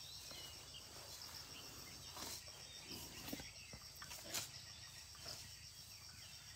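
Faint outdoor ambience: insects trilling steadily in a fast, even pulse, with a few soft rustles and clicks.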